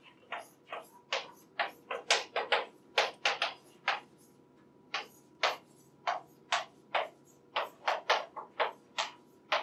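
Chalk writing on a blackboard: an irregular run of short, sharp taps and scratches, two or three a second, as letters are written, stopping just before the end.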